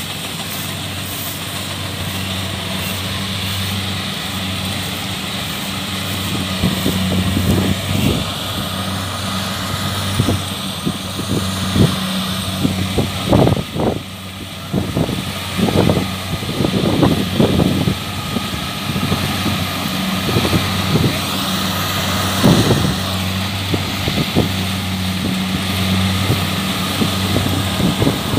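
Kubota DC-70 combine harvester's diesel engine running steadily, with irregular clusters of knocks and rattles from about 7 to 23 seconds in.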